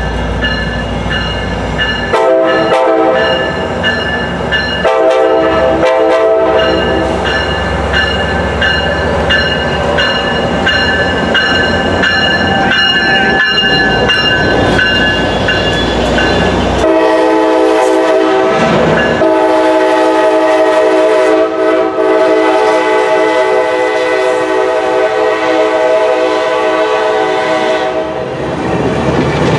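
Passenger diesel locomotive passing close by and sounding its multi-chime air horn: two blasts of about two seconds each, then one long blast of about ten seconds with a brief break. Under the horn, the engine rumbles as the locomotive goes by, and the passenger cars' wheels clatter on the rails after it has passed.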